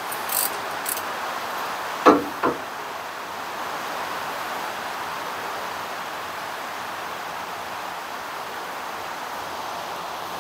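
A ratchet wrench on the Ford Model T's torque-tube bolts: a few light clicks, then two sharp knocks about two seconds in, over a steady hiss.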